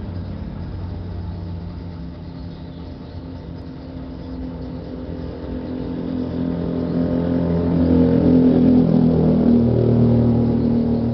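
A motor engine running steadily, getting louder from about six seconds in and easing off near the end.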